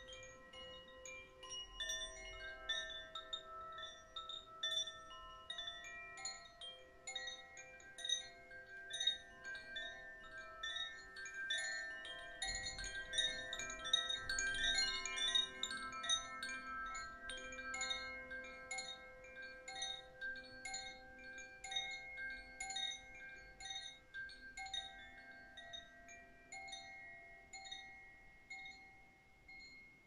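Koshi Terra wind chime ringing: its tuned rods struck by the clapper in quick, irregular tinkles, with many overlapping notes ringing on. The strikes are busiest and loudest around the middle and thin out toward the end.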